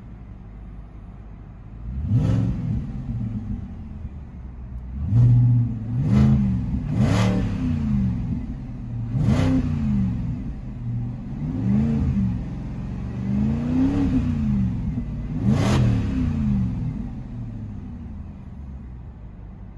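BMW N62B48 4.8-litre V8 engine of a 2007 550i, free-revved in Park from idle about eight times in quick blips, the needle reaching about 4,000 rpm, then settling back to a steady idle near the end. Heard from inside the cabin.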